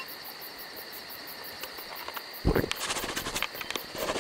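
Insects chirping steadily in the grass with a fast, even high pulse. About two and a half seconds in comes a thump, then a second or so of small clicks and knocks, as of paint jars and brushes being handled.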